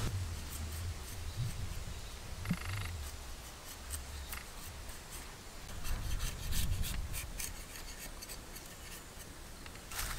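A knife scraping the skin off a raw carrot in quick, repeated short strokes over a low rumble.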